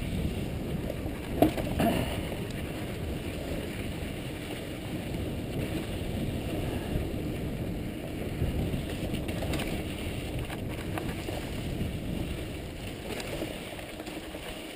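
Mountain bike rolling over rocky dirt singletrack: a steady rumble of tyres and rattling bike, with short knocks as the wheels hit rocks, the sharpest about a second and a half in.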